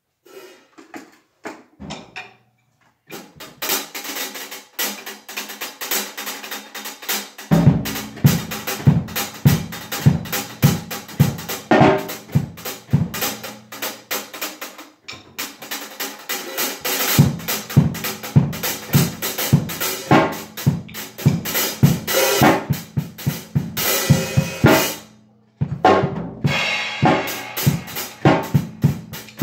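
Acoustic drum kit being played with sticks: a few scattered taps, then steady playing on snare and cymbals, with the bass drum joining about a quarter of the way in. The playing drops out briefly midway and again near the end, then picks up again.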